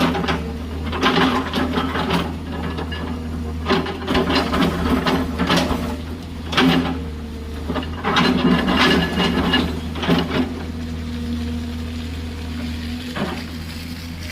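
Excavator's diesel engine running steadily under irregular bursts of clatter and scraping from gravel and rock as the bucket digs and dumps. The clatter stops about ten seconds in, leaving the engine with one sharp knock near the end.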